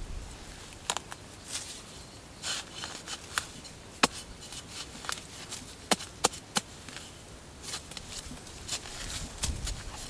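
Digging in dry soil with a metal blade: irregular sharp strikes and scrapes as the blade chops into the earth, a few louder knocks about four and six seconds in.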